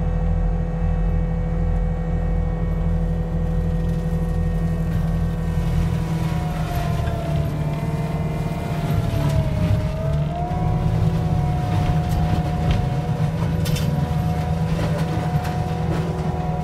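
Forestry mulcher running, heard from the operator's cab: a steady engine drone with a high whine whose pitch dips briefly near the middle and then recovers. From about six seconds in, scattered cracking and rattling of brush being ground up, with chips striking the cab.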